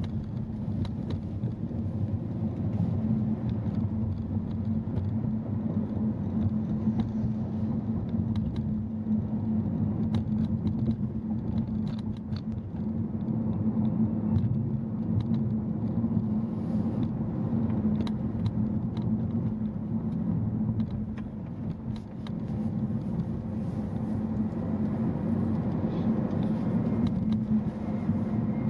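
A car driving on city streets: steady engine and road rumble with a constant low hum and scattered faint clicks.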